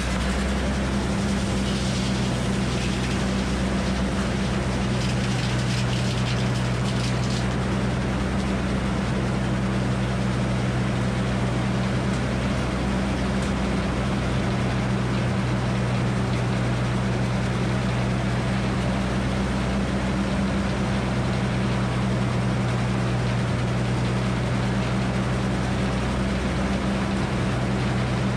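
Frick circular sawmill running with its big blade spinning free between cuts: a loud, steady, even hum. Some light rattling comes over it in the first several seconds.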